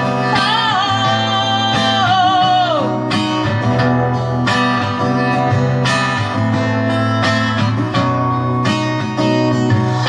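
Acoustic guitar strummed steadily, with a woman's voice holding one long sung note with vibrato that slides down and ends about three seconds in; the guitar then plays on alone.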